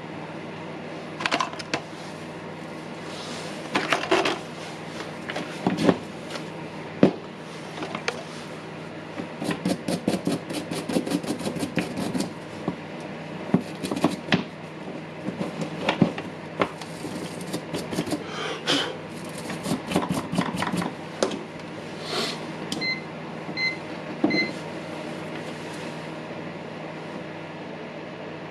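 Hands handling the opened plastic housing and internal parts of a cordless hammer drill during repair: scattered clicks, taps and rattles, with a quick run of rapid clicks about ten seconds in. Near the end come three short, faint beeps, over a steady background hum.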